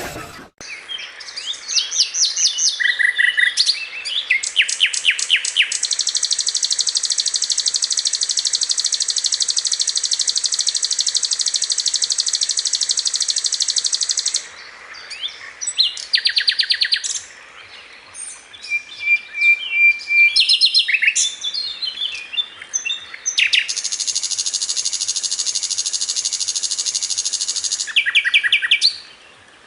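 Songbird singing: bursts of rapid high chirps and two long, fast, high trills, the first lasting about eight seconds and the second about four, with short chirping phrases between them.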